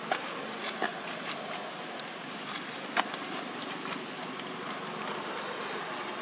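Steady outdoor background noise with a few scattered sharp clicks, the loudest about three seconds in.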